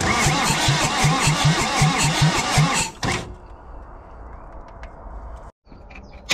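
Land Rover 200Tdi four-cylinder diesel engine being cranked over on its starter motor, an even chugging of about five compression beats a second that stops about three seconds in. The engine has just been freed from seizure and turns over without firing.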